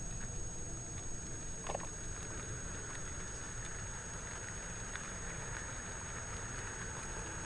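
N-gauge model Wamu 80000 covered freight wagons rolling past on track, a steady low rumble with faint irregular clicks as the wheels cross the rail joints. A brief squeak about two seconds in.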